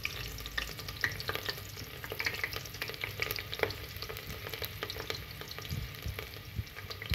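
Sliced onions sizzling in hot oil, a steady dense crackle with scattered louder pops.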